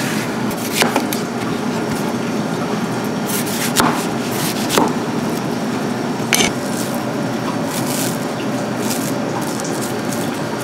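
Kitchen knife cutting fruit on a cutting board: a handful of sharp, irregular knocks over a steady background of kitchen noise.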